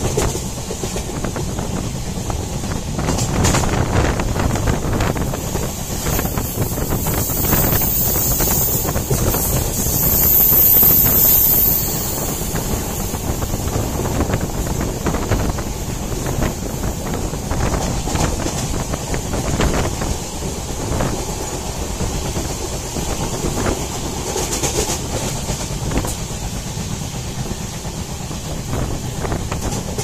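Passenger train running along the track, steady rumble and rattle of the wheels and coaches, with wind buffeting the microphone. Briefly louder about ten seconds in.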